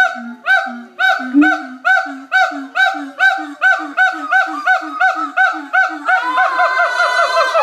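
Monkeys giving a long run of loud, rhythmic calls, about three a second and gradually quickening. A little past six seconds in, a second, faster series of calls joins over them.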